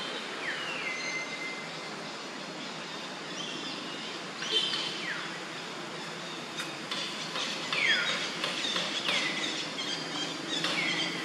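A group of common hill mynas calling: several loud whistles that slide down in pitch, mixed with short, sharp, clicky notes, over a steady background hiss.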